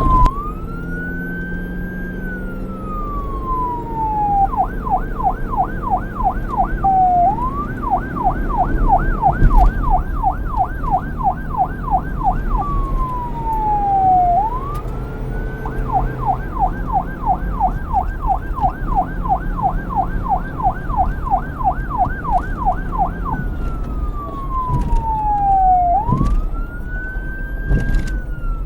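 Police car electronic siren switching back and forth between a slow wail, rising and falling over a couple of seconds, and a fast yelp of about three to four sweeps a second. A low rumble runs underneath.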